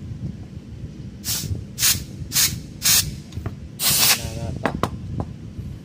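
Short blasts of compressed air from a blow-gun nozzle blowing out small air-compressor parts: five hissing puffs over about three seconds, the last one the longest.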